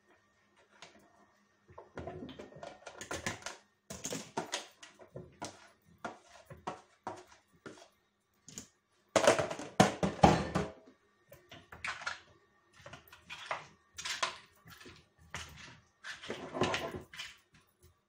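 Irregular knocks and clatter of plastic kitchenware and utensils being handled and set down around a Tupperware microwave pressure cooker, with a longer burst of clattering about nine seconds in.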